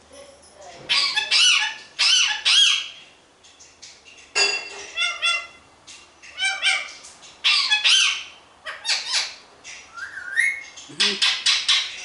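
Rose-ringed parakeet giving a quick series of short, high squawks and calls in groups of two or three, with a rising call near the end.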